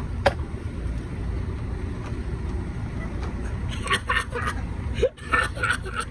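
A parked bus's diesel engine idling with a steady low rumble, with a sharp click near the start.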